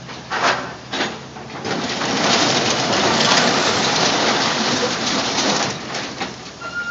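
Caterpillar excavator bucket coming down on a pile of scrap metal: two sharp crunches about half a second apart, then a long loud stretch of grinding and crumpling metal that eases off near the end.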